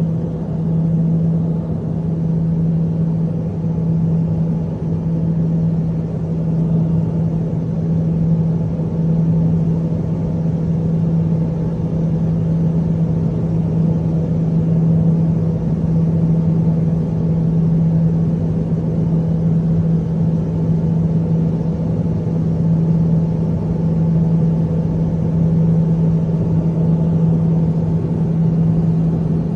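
Steady drone of a Piper Cheyenne's twin turboprop engines and propellers heard inside the cabin during the climb after takeoff: a loud, even hum with one strong low steady tone that does not change.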